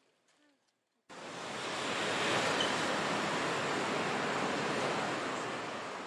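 A loud, even rushing noise that starts abruptly about a second in, swells briefly and then slowly fades.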